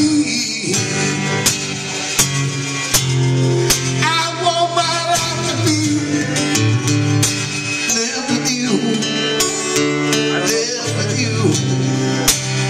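Live acoustic guitar strummed with a voice singing over it.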